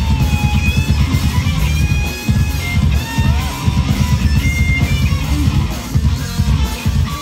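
Live rock band playing: electric guitars over a pounding bass and drum beat.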